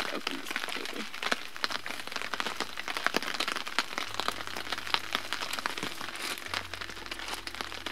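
Scattered raindrops and drips tapping irregularly on a wet nylon tent fly, over a light hiss of rain.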